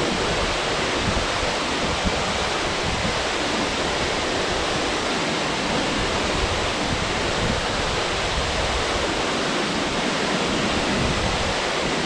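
A waterfall's steady rush of water falling into its plunge pool.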